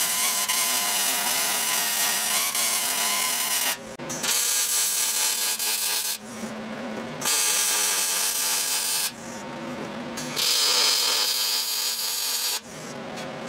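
Wire-feed welder arc crackling as a steel pipe is welded into a coil-spring tower, in four runs of about two seconds each with short pauses between beads.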